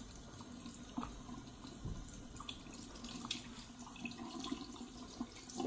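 Bathroom sink faucet running steadily, the stream splashing over a puppy held in wet hands.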